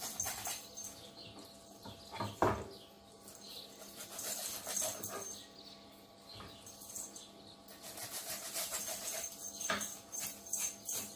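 Knife work and hand handling of a whole raw chicken on a wooden chopping board: soft scraping and rustling of skin and flesh, with scattered knocks on the board, the loudest about two and a half seconds in.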